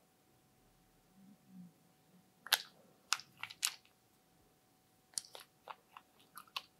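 Sharp plastic clicks from a small round makeup container being twisted and pried open by hand. The clicks come in two groups: about four spread over a second, starting two and a half seconds in, then a quicker run of six or seven near the end.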